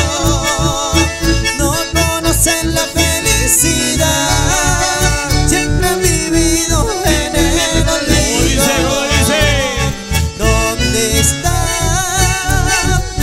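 Live band music with an accordion carrying the melody over strummed acoustic guitar and a steady, pulsing bass beat.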